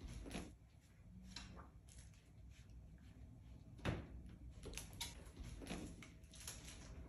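Faint, scattered clicks and light knocks of mini goldendoodle puppies moving about on a hard floor among their toys, with one sharper knock about four seconds in.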